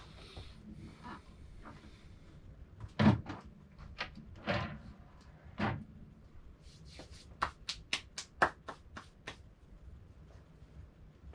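Clunks and knocks of a DeWALT DWS779 sliding miter saw being handled as its head and table are swung to a miter angle, a few heavy thuds in the first half. Then a quick run of about ten sharp clicks.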